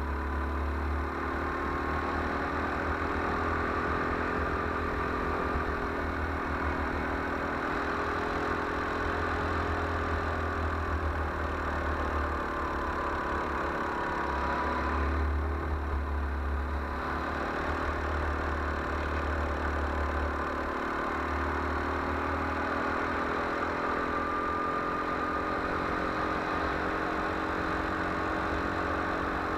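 Go-kart engine running at speed, heard from the kart itself, its pitch rising and falling as the kart accelerates and slows through the corners, over a steady low rumble.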